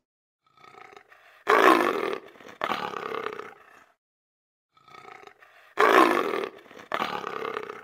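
Lion roaring: two loud, rough calls, then the same pair again about four seconds later.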